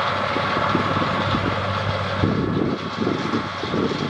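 Challenger MT955B four-wheel-drive tractor's 460-horsepower engine running steadily under load while pulling a disc-chisel-disc through corn stubble, with irregular clattering from the tillage tool from about two seconds in.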